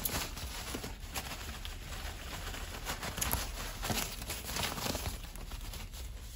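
White packing wrap rustling and crinkling as it is cut with scissors and pulled off a wrapped item, with many small crackles and snaps along the way.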